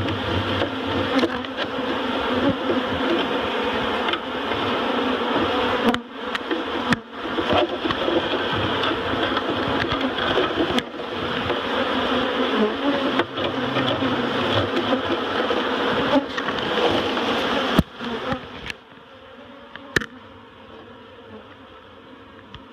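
Dense, steady buzzing of a large honeybee colony clustered inside an opened barrel, heard up close among the bees, with a few brief clicks. About three-quarters of the way through the buzzing drops much quieter.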